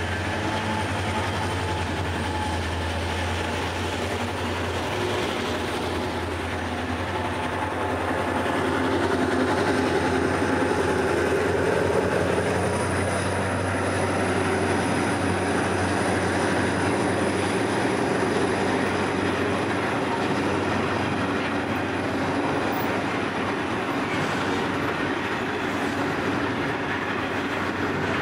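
Pacific National grain train departing: its diesel-electric locomotives run under power as they pass, their low engine hum fading after about eight seconds. A long line of loaded grain hopper wagons then rolls by, the wheel noise growing a little louder.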